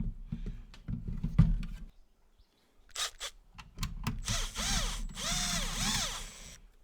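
Clicks and knocks, then a small power tool's motor, like a cordless drill or driver, whirring in several short pulses that each rise and fall in pitch.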